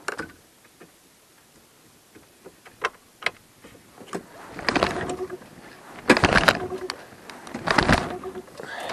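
Small outboard motor being pull-started: about four hard pulls on the recoil starter cord, each a short rasping burst of cranking, with short pauses between and no steady running afterwards.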